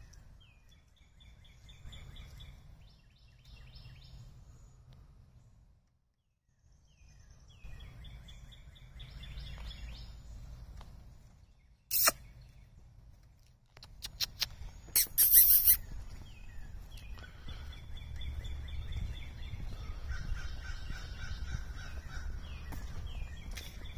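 Birds calling in repeated runs of short, high notes over a low steady rumble. A sharp click about halfway through, and a few louder bursts a few seconds after it.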